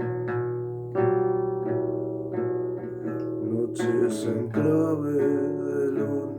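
Acoustic guitar playing plucked notes and chords, each one ringing and fading. A voice comes in singing over it about two-thirds of the way through.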